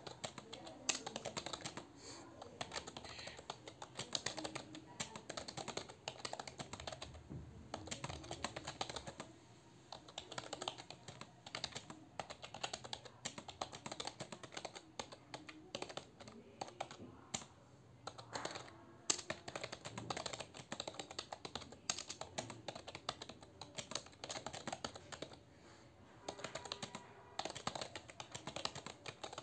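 Computer keyboard being typed on fast and steadily, a rapid run of keystrokes broken by a few short pauses, at a typing-test pace of about 48 words per minute.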